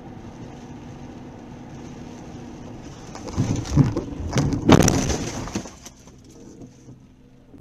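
Steady road noise heard from inside a car, then about three seconds in a collision: a run of heavy crunching impacts and breaking glass lasting a couple of seconds, loudest near the middle, fading out afterwards.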